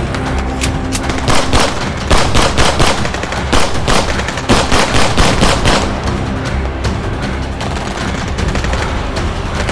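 Rapid machine-gun gunfire sound effects, about five shots a second, laid over background music; the shots stop about two-thirds of the way through, leaving the music.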